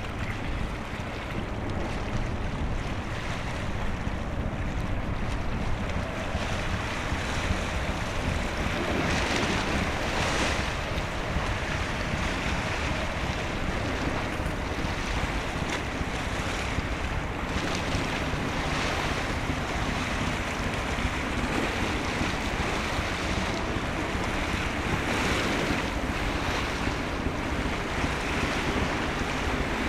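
Wind buffeting the microphone over the wash of sea water, with a low steady drone underneath and several stronger gusts along the way.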